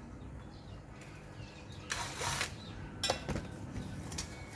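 Mechanical handling noise: a short scrape about two seconds in, then a few sharp knocks.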